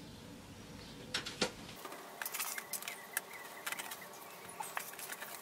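Rock dust sprinkled by hand onto compost: a scatter of small irregular ticks and patters as the grains land, thicker from about two seconds in.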